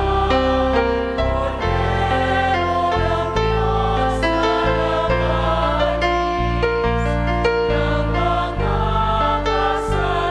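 Music: a choir singing over sustained chords and a bass line.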